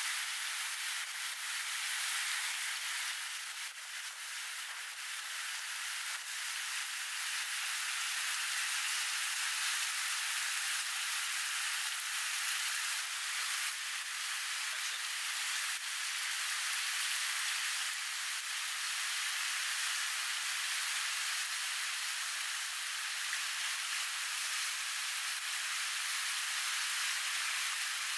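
Steady rushing of river water, an even hiss, with a few faint wet squishes of hands working spice paste into raw chicken.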